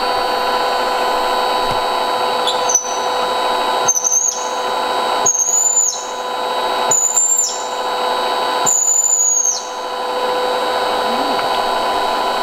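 Seat-and-guide machine's spindle running with a steady hum while a chamfer cutter is pecked into a drilled pin hole in the aluminium engine block. Each peck gives a high whine: one brief touch, then four longer cuts about every 1.5 to 2 seconds.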